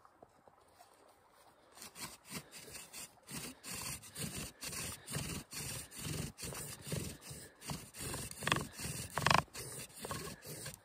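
Bow drill being worked: a wooden spindle grinding in a wooden hearth board, a rasp with each pass of the bow at about two a second. It starts about two seconds in and gets louder, loudest near the end.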